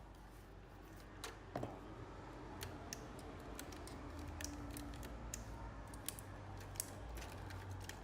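Faint, scattered plastic clicks and taps from parts of an Epson L3150 inkjet printer being handled as the printhead carriage is moved and taken apart, with a few louder clicks about one and a half seconds in. A low steady hum runs underneath.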